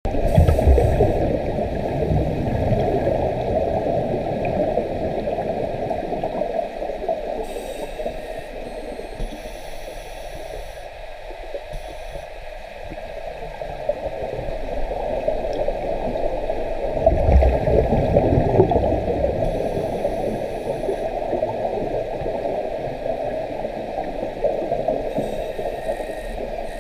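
Exhaled air bubbles from a scuba regulator, heard underwater: a muffled, low bubbling rush that swells twice, once at the start and again a little past the middle, with a quieter stretch between.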